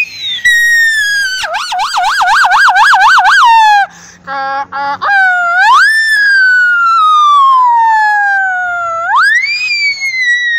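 A boy imitating police and emergency sirens with his voice, hands cupped around his mouth. There is a slow falling wail, then a fast warble of about four swings a second, a brief lower broken note, and two long wails that each rise quickly and fall slowly.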